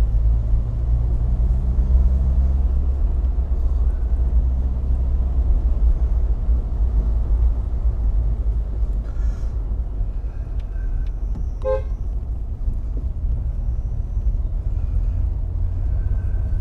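Triumph Herald 13/60's 1300cc four-cylinder engine and road noise heard from inside the car at a steady cruise, a continuous low rumble. About twelve seconds in, a brief pitched toot cuts through.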